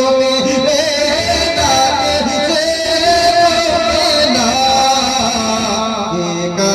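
A male voice singing long, wordless held notes that glide slowly from pitch to pitch in a melismatic, ornamented line, as in a naat recitation.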